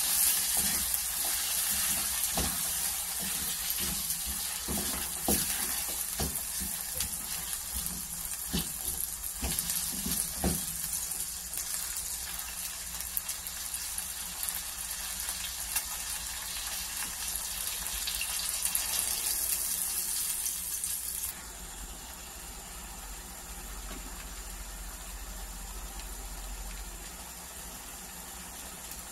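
Corned beef, diced potatoes and onions sizzling in a stainless steel frying pan, with a wooden spoon scraping and knocking against the pan through the first ten seconds or so. About two-thirds of the way in the sizzle cuts off suddenly to a quieter, steady hiss once water is in the pan and the mix simmers.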